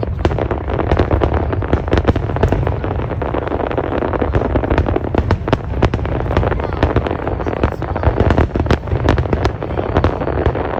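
Large fireworks display going off: many sharp cracks in quick succession over a continuous low rumble of bursting shells.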